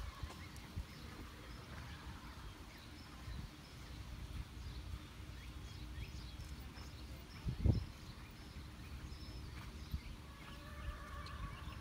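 Open-air ambience with a steady low rumble, faint bird chirps and the soft, scattered hoofbeats of a horse working on sand at a distance. One heavy low thump about two-thirds of the way through is the loudest sound.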